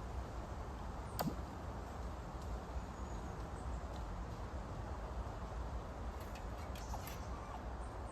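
An acorn dropping into canal water with one sharp plop about a second in, followed later by a few fainter ticks and a small second plop, over a steady outdoor background.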